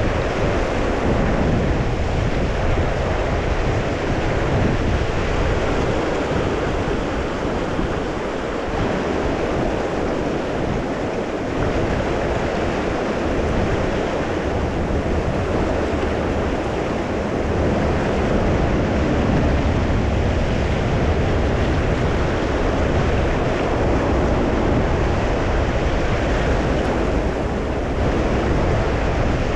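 River water rushing steadily over the rocks of a shallow stream, with wind on the microphone.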